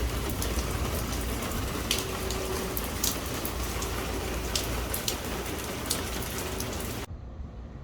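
Steady rain from a passing thunderstorm, with individual drops ticking sharply close by. It cuts off abruptly near the end.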